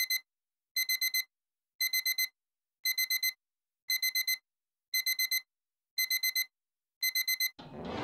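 Digital alarm clock beeping: quick groups of four high electronic beeps, one group about every second. Near the end the beeping stops and music starts.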